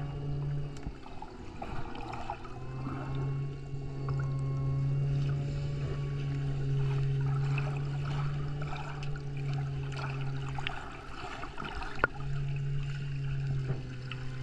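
Muffled underwater sound picked up by a submerged camera: a steady low hum with fainter wavering tones over it, and scattered crackles and clicks.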